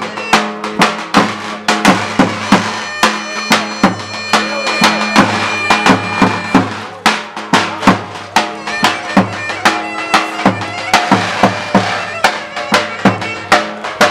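Live Turkish folk music for a çiftetelli dance: a double-headed davul drum beating the rhythm with sharp strikes several times a second, under a reedy wind instrument playing the melody.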